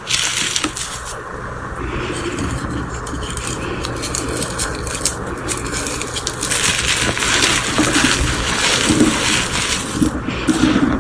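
Reformed gym chalk with glitter crunching and crumbling as hands rub and squeeze it through loose chalk powder, a steady gritty scraping full of small crackles. About halfway through, the crunching turns crisper and louder as a stack of chalk chunks is squeezed together.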